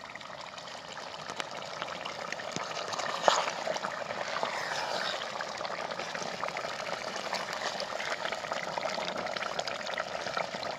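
Mutton gravy bubbling in a clay pot over a wood fire and being stirred with a wooden spatula, a steady wet simmering; a single sharp knock about three seconds in.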